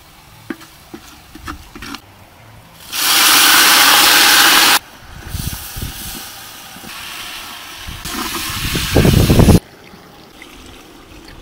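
Water rushing and splashing in a cooking pot, then chopped pumpkin tipped from a wicker basket into the pot, tumbling and splashing into the water. The loud rushes start and stop abruptly, the last and heaviest cutting off suddenly near the end.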